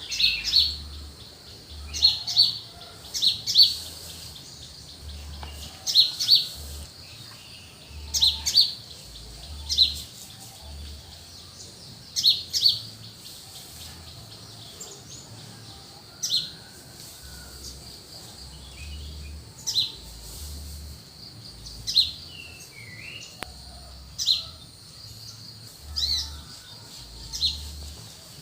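Birds calling in the early morning: short, sharp, high chirps repeated every second or two, sometimes in pairs, over a faint steady background hum.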